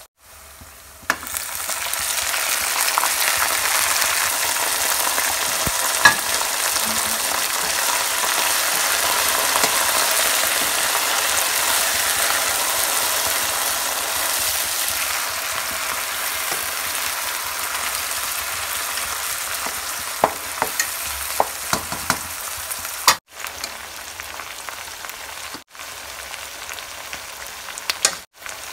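Chicken pieces and browned onions frying in hot oil in a pan: a loud, steady sizzle that starts suddenly about a second in and eases off later on. A few sharp knocks of a wooden spatula against the pan come through it, and the sound drops out briefly a few times near the end.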